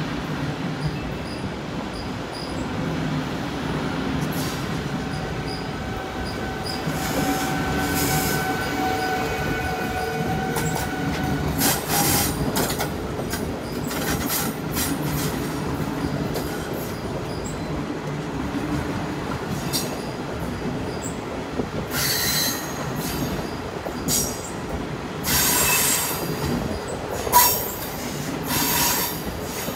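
SNCB double-deck passenger train running past, its wheels rumbling and clacking over the rails. The wheels squeal: drawn-out squeal tones from a few seconds in, then sharp, shrill squeals that come and go, most often near the end.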